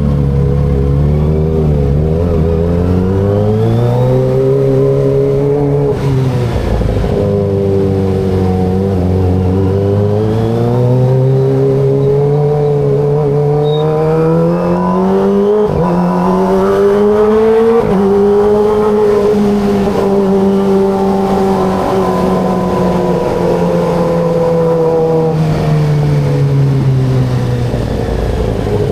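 Kawasaki ZX25RR's 250 cc inline-four engine pulling up through the gears: the pitch climbs, drops sharply at each of about three upshifts, holds steady at cruising revs, then falls away near the end as the throttle closes.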